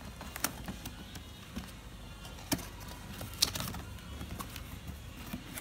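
Cardboard box being handled and its flap opened: scattered taps, scrapes and rustles of the cardboard, with a sharp knock about three and a half seconds in.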